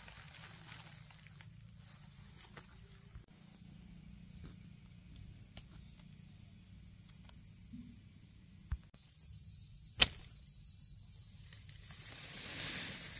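Insects chirping in a steady high-pitched drone with rhythmic pulses, the pattern changing abruptly twice. A single sharp click about ten seconds in.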